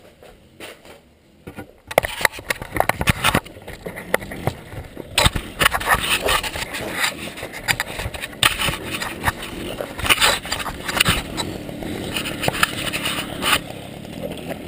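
Scraping, rustling and knocking handling noise from a body-worn action camera as its wearer moves about, starting about two seconds in and continuing in irregular crackles and knocks.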